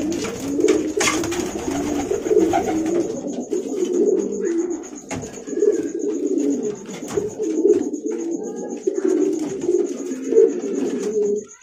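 Domestic pigeons cooing continuously, a low warbling courtship coo from a newly mated pair, with a few sharp wing flaps as the birds flutter against each other.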